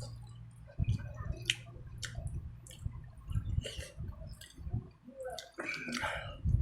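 Close-miked eating of fish and rice: wet chewing, lip smacks and mouth clicks, with a louder wet slurp about six seconds in.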